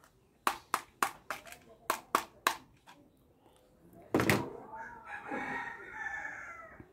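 Plastic Spider-Man toy pistol's trigger clicking about eight times in quick succession, then a rooster crowing for about two and a half seconds near the end.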